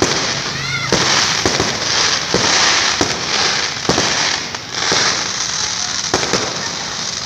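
Aerial fireworks going off: dense crackling with a sharp bang about once a second, and a brief whistle from a rocket about half a second in.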